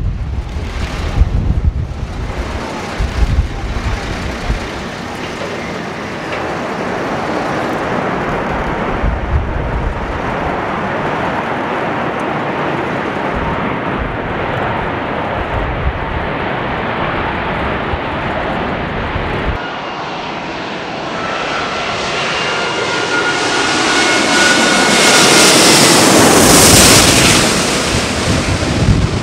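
Airbus A380 jet engines running as the aircraft rolls along a wet runway, with wind buffeting the microphone. After a sudden cut about twenty seconds in, a Qantas A380 with Rolls-Royce Trent 900 engines comes in low overhead on approach. Its engine noise swells to its loudest near the end, with high whining fan tones that dip slightly in pitch as it passes.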